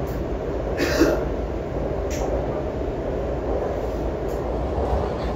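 Subway train running through a tunnel, heard from inside the driver's cab: a steady rumble, with a short sharp noise about a second in.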